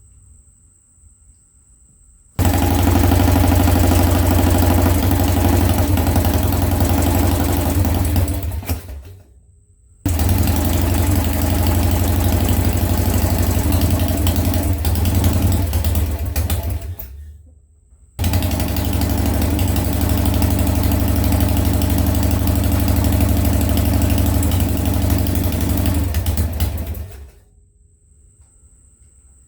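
Harley-Davidson Sportster XLH air-cooled V-twin engine being started for the first time after a top-end rebuild: it starts three times, each run lasting about six to nine seconds before it stops, with short quiet gaps in between.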